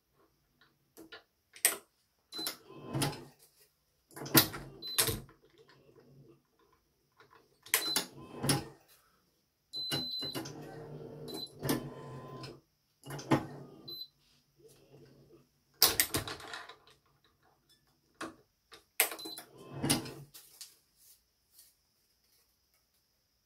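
Badminton racket being strung on a stringing machine with BG80 string: irregular sharp clicks and knocks of the clamps and frame, and rustling as string is pulled through, at times over a low steady hum. Several short high beeps come in between.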